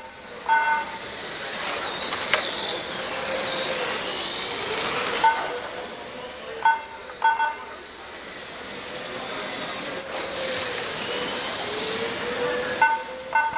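Radio-controlled cars racing, their motors whining high with the pitch rising and falling as they speed up and slow down. Short electronic beeps sound every few seconds, some in quick pairs.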